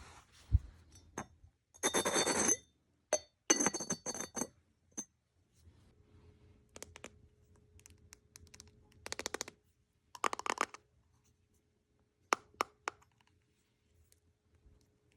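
A ceramic pottery lid being sanded smooth, gritty scraping in four short bursts with sharp clinks of the ceramic between them.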